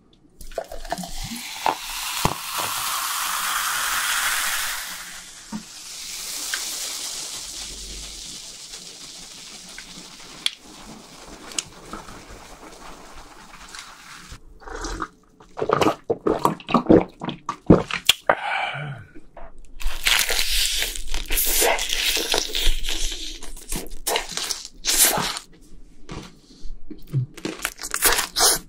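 Cola poured from a plastic bottle into a glass, splashing, rising in pitch over the first few seconds, then a fizzing hiss of carbonation that slowly fades. From about halfway, close-miked crunchy bites and chewing of fried chicken.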